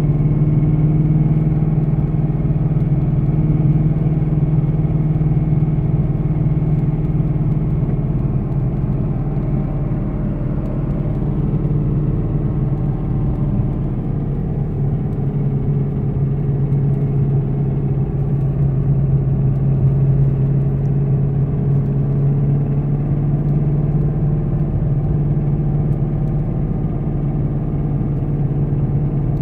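Car engine and road noise heard from inside the cabin while driving, with the engine note sagging slightly in pitch about halfway through and recovering. Under it is the rpm-linked rubbing noise that sounds like a fan rubbing or hitting something, worst with the engine cold and below 4000 rpm.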